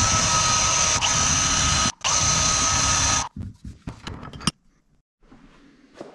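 Cordless drill spinning a wire wheel brush against a rusted steel trailer pivot bolt held in a vise, scrubbing off surface rust with a steady high whine. It runs in two spells, about two seconds and then a second and a half, with a brief stop between, followed by a few short knocks.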